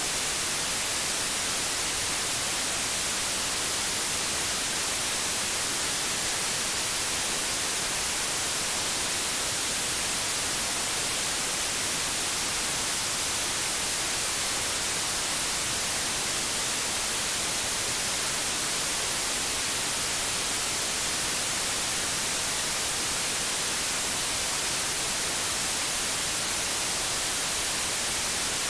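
Steady white noise: an even, unchanging hiss, strongest in the high end.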